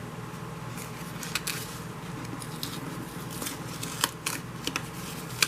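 Paper and cardstock being handled: scattered small clicks and rustles, with a sharper click about four seconds in and another near the end, over a steady low hum.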